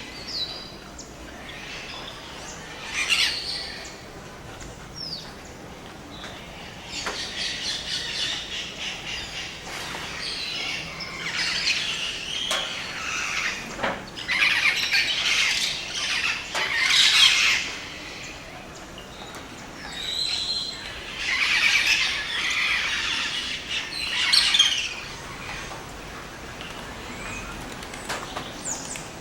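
Rainforest birds in the dawn chorus: bouts of harsh, high-pitched calls and chattering every few seconds, with quieter stretches between.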